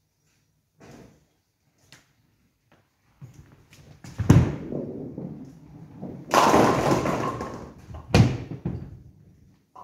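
Nine-pin bowling ball set down onto the lane with a hard thud and rumbling as it rolls, then crashing into the pins about two seconds later with a clatter that trails off. Another heavy thud follows near the end, with light knocks earlier on.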